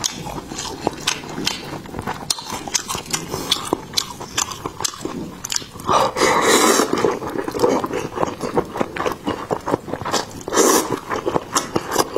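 Close-miked eating of snail noodles (luosifen): chewing with wet mouth clicks, and long slurps as the noodles and fried tofu skin are sucked in, about six seconds in and again near the end.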